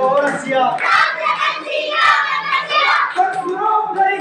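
A group of children singing a devotional chant together, many voices at once.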